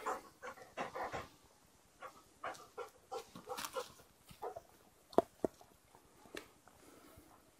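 A dog close to the microphone, sniffing and breathing in short, irregular bursts as it noses at a person's hands. Two sharp clicks come a little after five seconds in.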